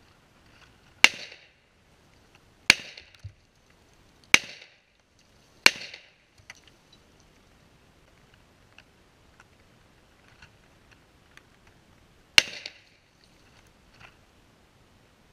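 Five gunshots, each a sharp crack with a short echo: the first four about a second and a half apart, the fifth after a pause of about six seconds. Faint ticks and knocks fall between the shots.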